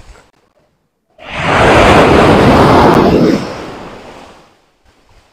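Surf breaking and washing up a sandy beach: the rush swells in about a second in, holds strong for about two seconds, then dies away.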